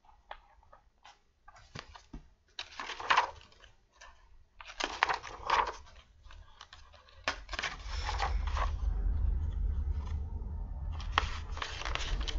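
Rustling, crinkling handling noises with scattered clicks as a picture book is handled and opened. A low rumble of handling noise on the microphone joins about seven seconds in.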